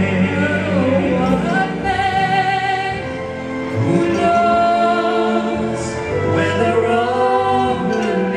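A male and a female singer singing a duet into microphones, holding long notes with vibrato, over instrumental accompaniment.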